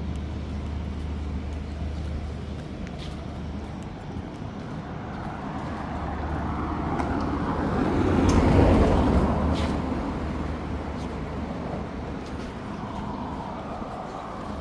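A motor vehicle passing on the street, its sound building to a peak about eight seconds in and then fading away, over a steady low hum.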